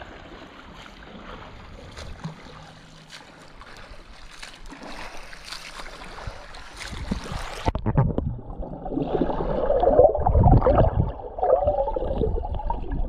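Water lapping and splashing at the surface as an open-water swimmer approaches doing front crawl. About eight seconds in, the microphone goes underwater and the sound turns muffled and louder: churning water and bubbles as the swimmer's arms and legs stroke past.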